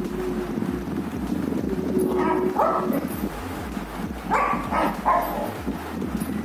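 German Shepherd moving about on a bed and nosing at a person lying face down, with bedding rustle and paw thumps. There are short whines twice, about two seconds in and again about four and a half seconds in.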